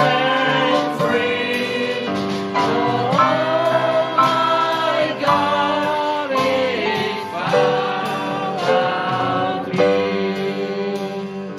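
A congregation singing a hymn together, with instrumental accompaniment and regular percussion hits.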